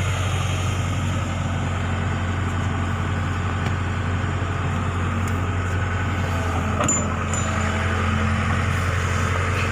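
Diesel engine of a Case backhoe loader running steadily, with a brief metallic knock about seven seconds in.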